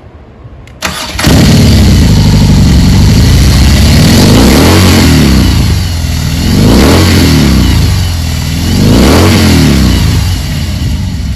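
A BMW R18's 1,802 cc boxer twin cranked and firing up a second in, then revved several times with the pitch rising and falling every couple of seconds, a low rumble through its exhaust.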